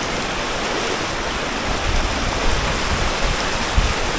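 Steady rushing, splashing water noise, with a few low thumps in the second half.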